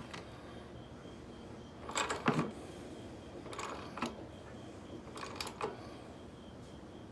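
Ratchet clicking in three short bursts, about one and a half seconds apart, as a socket wrench tightens a new spark plug into a Honda lawn mower engine until its sealing washer seats.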